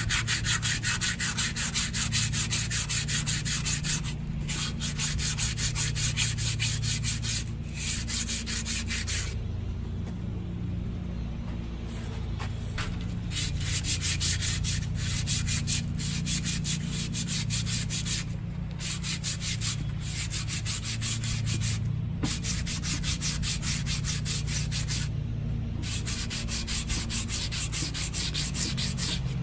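Fine sandpaper rubbed by hand over a metal wheel rim's bead seat in quick back-and-forth strokes, in long runs broken by short pauses. The sanding smooths off dirt and rust so the tire bead can seal against the rim.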